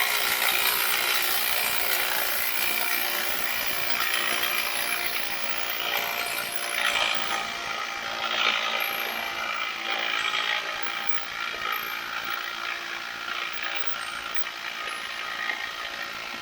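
Handheld power tool running without a break, working a threadlocked suspension fastener (a sway bar link nut) loose; the nut is held with lots of Loctite.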